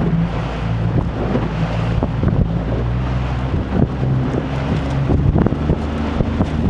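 Small fishing boat's engine running steadily under way, a low hum, with wind buffeting the microphone.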